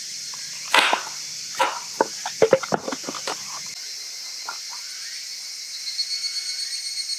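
Dry firewood being split: a string of sharp knocks and cracks through the first four seconds or so, then fewer. Underneath, a steady high chorus of evening insects, higurashi cicadas.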